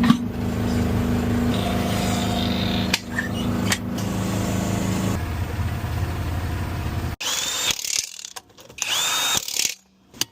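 A steady mechanical hum from tire-service equipment that cuts off suddenly, followed by two short whirs of a power tool spinning up and winding down.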